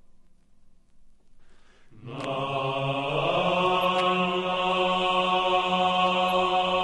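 Slow, chant-like vocal music: after about two seconds of near quiet, a new chord of long held notes enters and sustains steadily.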